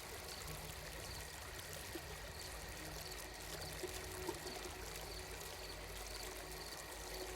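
Ambient soundscape of steadily running, trickling water, with a faint high pulse repeating at regular intervals.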